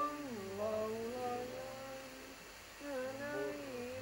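A person humming a slow, wordless tune in long held notes that glide smoothly between pitches, with a short pause a little past halfway.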